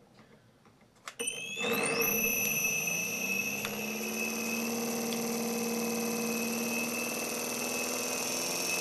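A switch clicks, then the CR-Kromrey converter's north armature starts spinning up: a whine with several high tones that rises in pitch over about half a second and then holds steady.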